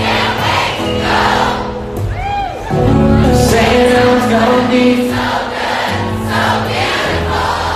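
Live concert music from a band with singing, picked up by a phone's microphone, with many voices singing together as the crowd sings along.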